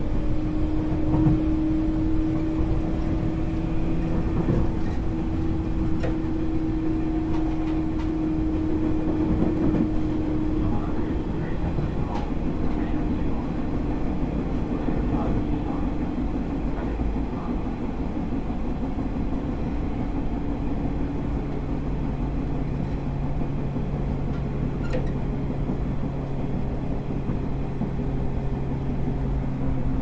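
Interior running sound of a 103 series electric train, taken in motor car MoHa 103-385 above its traction motor: a steady rumble of wheels on rail with a humming motor-and-gear tone. About twenty seconds in, a second, lower hum joins.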